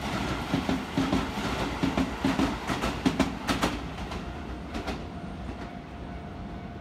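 Keisei 3000-series electric commuter train running past, its wheels clacking over the rail joints in a quick, even rhythm. After about four seconds the clacking stops and the train fades as it moves away.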